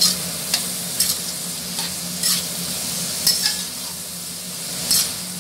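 Vegetables (peas, tomato, capsicum) sizzling as they fry in a metal kadhai, stirred with a spatula. There is a steady frying hiss, with a scrape of the spatula against the pan about every second.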